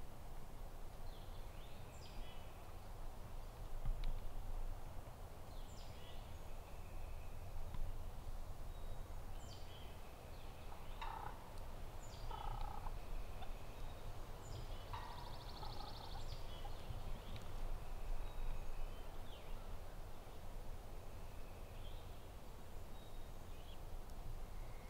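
Wild turkey gobbler gobbling, about three gobbles in quick succession around the middle.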